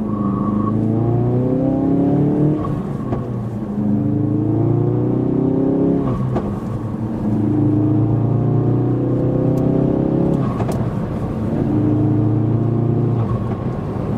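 Ford Focus RS Mk3's turbocharged 2.3-litre four-cylinder with a modified, louder exhaust, pulling hard through the gears, heard from inside the cabin. Its pitch climbs and drops back about four times as it shifts up, with a short sharp crack at two of the shifts.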